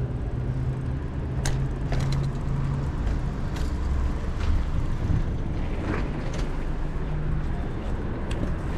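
Bicycle rolling over paving-stone blocks: a steady rumble from the tyres, with the bike rattling and a few sharp clicks.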